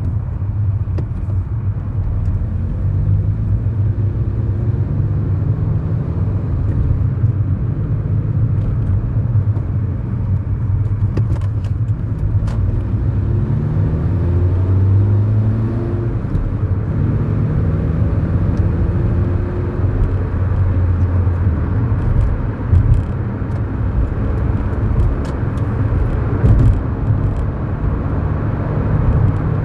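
Inside the cabin of a 2011 Kia Morning, its 999 cc four-cylinder petrol engine runs under steady tyre and road noise while driving. The engine note rises in pitch a few times roughly a third to half of the way through as the car accelerates.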